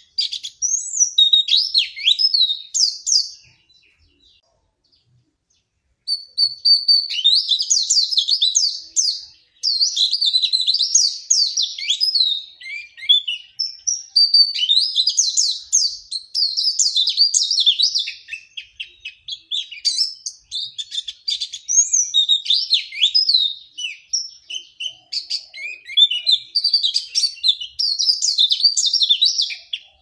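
A white-eye (pleci) singing a rapid, high twittering song of fast-gliding notes in long bouts. The song breaks off for a couple of seconds about four seconds in, then runs almost without pause.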